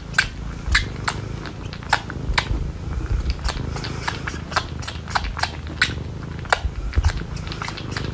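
Cat chewing and nibbling at a person's hair close to the microphone: sharp, irregular clicking bites a few times a second over a steady low purr.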